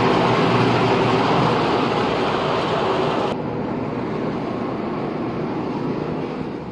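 Coffee processing machinery (depulper and screw conveyor) running, a loud, steady mechanical din with a constant low hum. About three seconds in it drops suddenly to a quieter, duller rumble.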